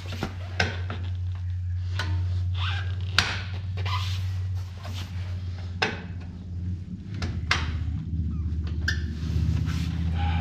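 Metal clicks, scrapes and clanks of pliers and a steel return spring being stretched and hooked onto a drum brake shoe, over a steady low hum.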